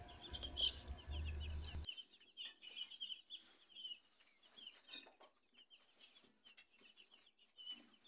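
A group of young chicks peeping: many short, high, falling cheeps overlapping without pause. A low hum and a thin high whine run underneath and cut off suddenly about two seconds in, leaving the peeping fainter.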